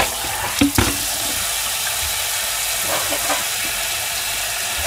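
Kitchen tap water running in a steady stream into a stainless steel sink and over plastic food containers as they are rinsed. A few light knocks of the containers come in the first second, and fainter ones about three seconds in.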